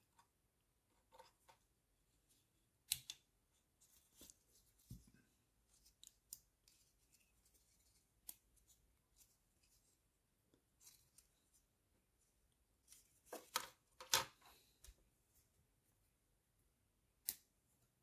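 Small plastic model-kit parts being snipped and handled: scattered sharp snips and clicks, the loudest about three seconds in, a cluster around thirteen to fourteen seconds, and one more near the end.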